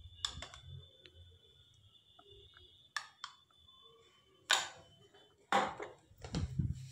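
A handful of soft scrapes and taps from a steel spoon on a small ceramic bowl as ginger-garlic paste is scooped out and dropped onto raw chicken pieces, with a few more knocks near the end as the bowl is set down on the counter.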